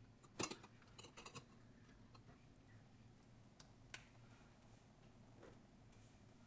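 Near silence, with a few faint clicks and taps from a plastic syringe and cup being handled: one about half a second in, a quick cluster about a second in, two around the middle and one near the end.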